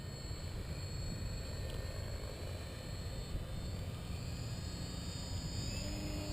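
Electric motor and propeller of an FMS 1400mm Pitts radio-controlled biplane whining in flight at a distance, over a steady low rumble of wind on the microphone. The whine climbs in pitch from about two-thirds of the way in.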